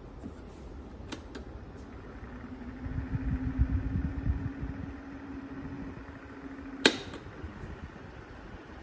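Small 12-inch solar table fan's motor humming steadily after light clicks, with its airflow gusting on the microphone at first, then cut off by a sharp switch click about seven seconds in.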